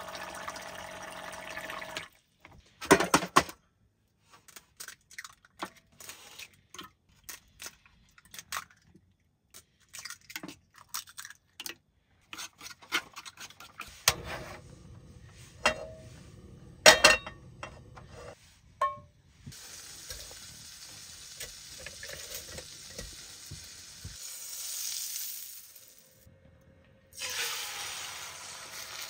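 Cooking sounds in short edited clips: dishes and utensils clinking and tapping, and stretches of steady hiss.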